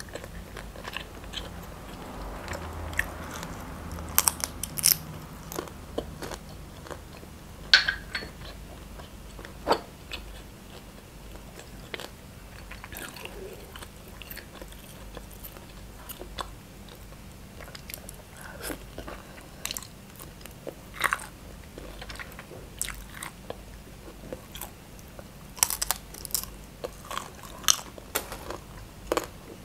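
Close-up eating sounds: a person biting and chewing shrimp, with wet mouth noises and irregular short clicks and crunches.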